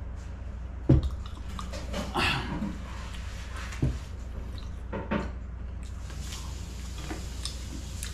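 A drinking glass set down on the table with a thump about a second in, followed by a few softer knocks and clinks of tableware being handled, over a steady low hum.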